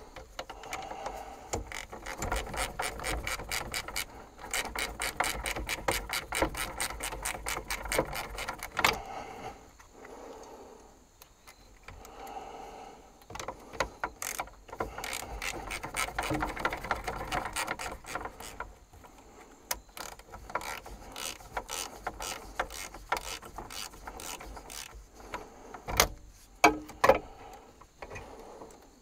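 Hand ratchet wrench clicking rapidly in bursts of several seconds, with short pauses between them, as bolts are run in or out. A few sharper knocks come near the end.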